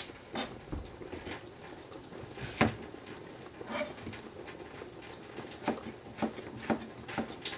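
Kitchen utensils and dishes clicking and knocking irregularly, with one louder knock about two and a half seconds in.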